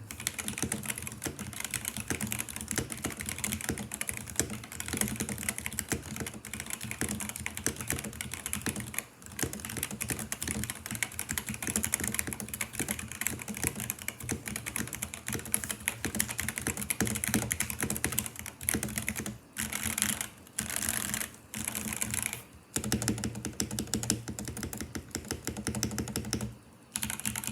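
Typing on a mechanical keyboard: fast, continuous keystrokes, with a few brief pauses in the last third.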